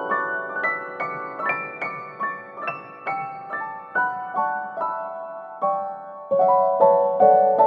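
Background piano music: a slow, gentle melody of single notes climbing higher over the first few seconds, then fuller and louder chords entering about six seconds in.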